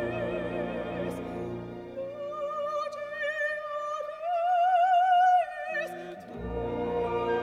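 Orchestra holding a soft chord, then a solo mezzo-soprano singing with a wide vibrato over a near-silent orchestra, rising to a louder held high note about four seconds in. The full orchestral chord returns near the end.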